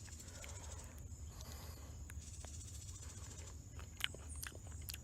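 Outdoor ambience with a steady high-pitched pulsing hiss of insects, over a low rumble. A few sharp clicks and snaps come near the end, the loudest about four seconds in.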